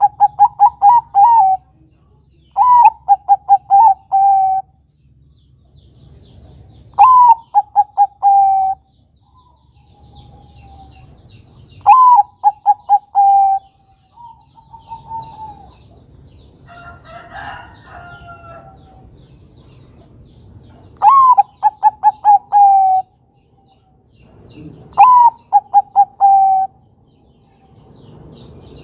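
Zebra dove (perkutut) singing its cooing song, repeated six times. Each phrase opens with one rising-and-falling note and is followed by a quick run of short coos. Faint high chirps of other small birds sound in the background, and a different, harsher call comes about two-thirds of the way in.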